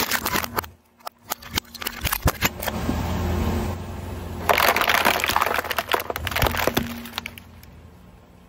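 Car tyre rolling over brittle objects on asphalt and crushing them: a run of sharp cracks and dense crackling, loudest about halfway through, over a low rumble from the car.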